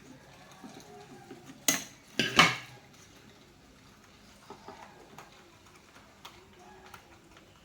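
Hard objects knocking and clattering together: a sharp clink, then a louder clatter about half a second later, about two seconds in, followed by a few faint light clicks.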